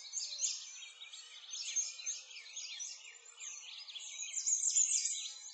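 A dense chorus of birds chirping, with many quick, high, rising and falling whistles overlapping continuously.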